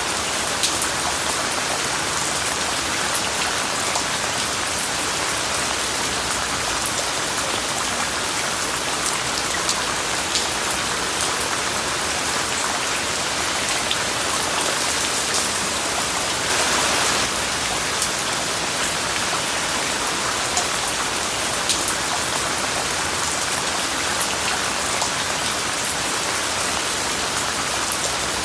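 Steady rain falling, with many scattered drop ticks standing out from the hiss; it grows briefly louder about seventeen seconds in.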